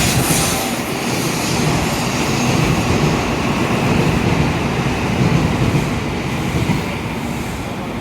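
Tokaido Shinkansen train running past the platform: a steady rushing rumble of motors, wheels and air that eases a little near the end.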